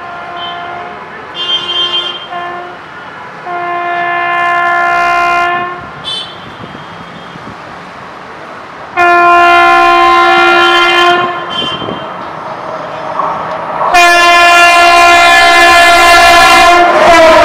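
An approaching Indian Railways electric locomotive sounding its multi-tone horn again and again: short toots, then longer blasts that grow louder as it nears. The last long blast begins about three seconds before the end and is the loudest, with the rumble of the arriving train building under it.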